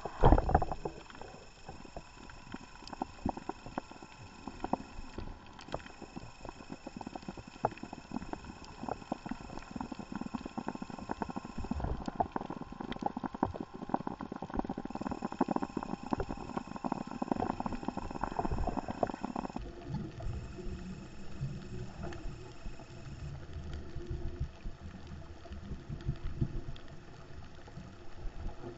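Underwater reef ambience through a camera housing: a dense, continuous crackle of clicks typical of snapping shrimp, over a faint steady hum. A loud knock comes just after the start, and a low rumble of water movement joins about two-thirds of the way through.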